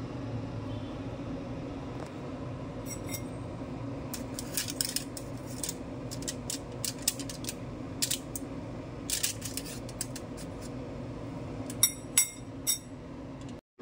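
A metal knife scraping and clicking against a foil-lined metal baking pan as it works along the edge of a baked bibingka, with three sharper clicks near the end. A steady low hum runs underneath.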